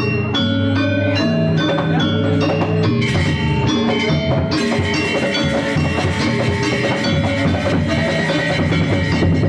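Balinese gamelan playing: bronze metallophones struck in a quick, even run of notes, with cymbals and drums joining about four and a half seconds in and the music growing fuller.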